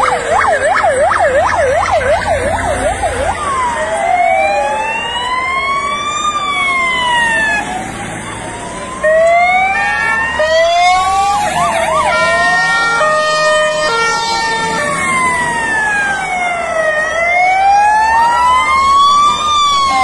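Sirens of several fire engines sounding at once. First comes a fast yelp, about four sweeps a second, for the first three seconds. Then several slow wails rise and fall out of step with one another, with a stretch of steady held tones near the middle.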